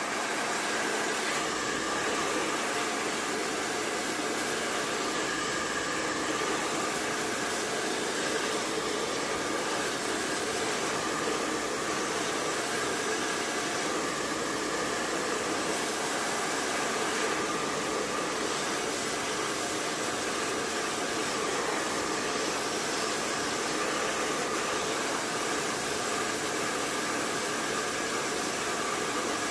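Hand-held blow dryer with a flat concentrator nozzle running steadily, blowing hot air onto an adhesive skin on a wristband to make the adhesive tacky and shrink the skin onto the band.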